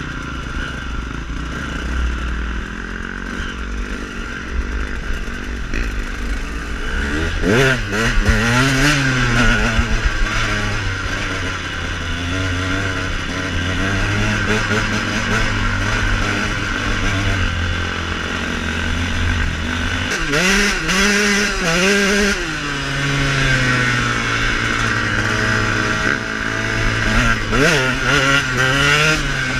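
KTM off-road motorcycle engine running under way, its pitch rising and falling as the throttle is opened and closed, with sharp revs about eight seconds in, around twenty seconds in and near the end.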